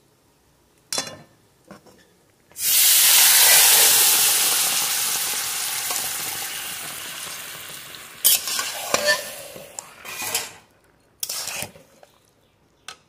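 Cut ripe mangoes dropped into hot ghee and fried spices in a kadai: a sudden loud sizzle that slowly dies away over several seconds. Then metal spatulas scrape and clink against the pan as the mangoes are stirred.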